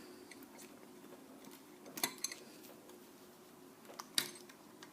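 A few faint clicks and light handling of small parts from a partly dismantled air compressor, once about two seconds in and again about four seconds in, over a faint steady hum.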